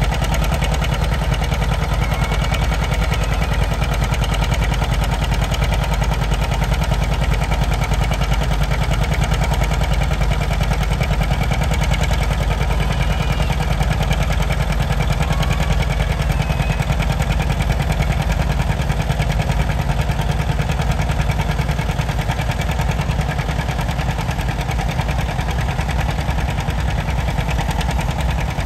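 Farm tractor's diesel engine running loud and steady.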